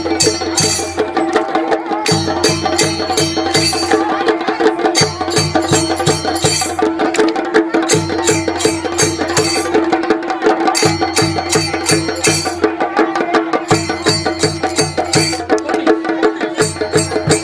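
Chenda drum ensemble (chendakottu): Kerala cylindrical drums beaten with sticks in a fast, sharp rhythm. Denser flourishes recur about every three seconds.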